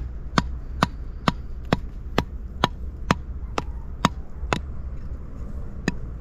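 Large knife blade chopping into the mud bank, about eleven sharp, even strikes at roughly two a second, then a pause and one last strike near the end.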